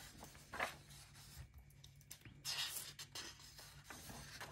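Paper pages of a colouring book turned by hand: faint rustles and swishes of the sheets, the loudest one just past halfway.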